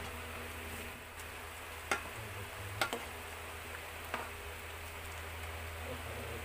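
Metal spoon stirring chicken and tomatoes in an aluminium pot, clinking against the pot a few times, over the soft sizzle of the simmering contents and a steady low hum.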